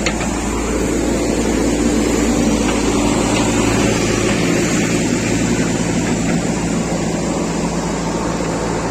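JCB 3DX backhoe loader's diesel engine running steadily under work, a continuous engine hum whose pitch steps down a little about four seconds in.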